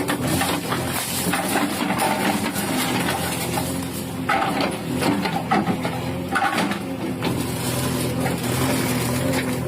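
JCB 3DX backhoe loader's diesel engine running steadily, with irregular sharp knocks and clanks now and then.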